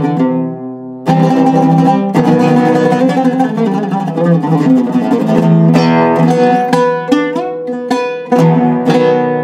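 Iraqi-style Zaryab oud with a cedar top and walnut back, played solo with a plectrum: a phrase of quickly plucked notes. The playing thins out briefly about a second in, picks up again, and ends on notes left ringing.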